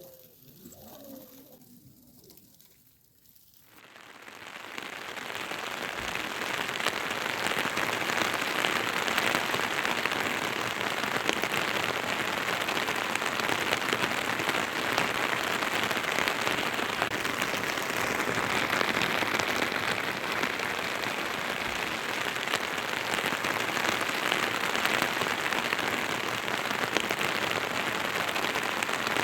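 Steady rain falling, fading in about four seconds in and then holding an even, dense hiss. Before the rain comes up, a few faint bird calls.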